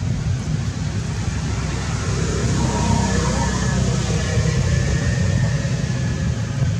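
Steady low rumble with an even hiss over it, the continuous outdoor background of wind or distant traffic, with a few faint thin tones showing about halfway through.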